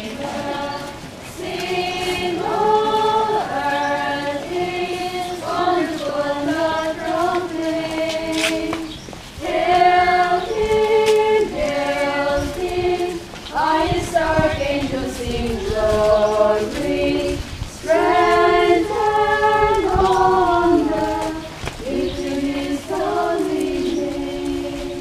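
A procession congregation singing a hymn together, many voices in phrases of a few seconds with held notes and short breaks between them.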